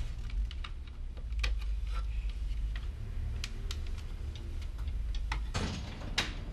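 Light, scattered ticks over a steady low hum, then about five and a half seconds in a newspaper rustles briefly as its pages are handled.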